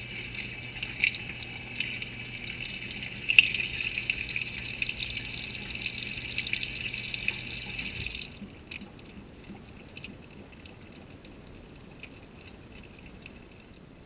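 Water gushing into a Whirlpool WTW4900BW high-efficiency top-load washer's tub as it fills, heard from inside the drum, with a low steady hum under it. The flow cuts off sharply about eight seconds in, leaving only a faint noise.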